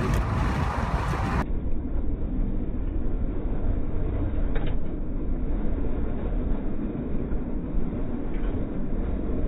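Steady road and engine rumble of a car driving, picked up inside the vehicle by a dashcam. About a second and a half in, the sound turns abruptly duller, and there is a faint tick a few seconds later.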